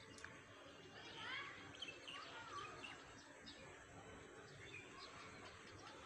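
Faint birds chirping: a run of short rising chirps about a second in, then scattered single chirps, over low outdoor background noise.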